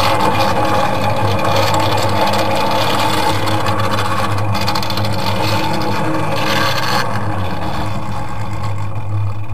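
The small engine of a ride-on miniature railway locomotive running steadily with a low, even hum as the train moves slowly along the track.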